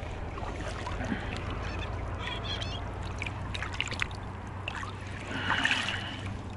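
Small splashes and drips as a hooked small fish is drawn across the water surface and grabbed by hand in the water. The loudest sound comes near the end: a short burst with a brief high squeak-like tone in it.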